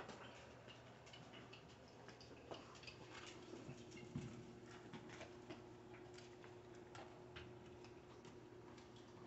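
Puppies gnawing on Bully Slices dog chews: faint, irregular clicking and crunching. Beneath it runs a low steady hum, joined by a faint steady tone about two and a half seconds in.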